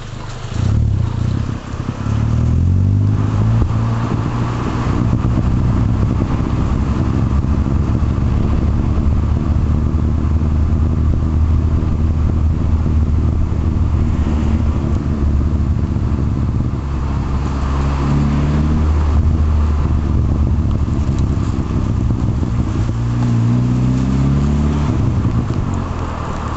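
A VW MK4 GTI's 1.8T turbocharged four-cylinder engine, breathing through a turbo-back exhaust with a Thrush glasspack in place of the muffler, with a low gurgle as the car drives. The revs climb shortly after the start and twice more in the second half.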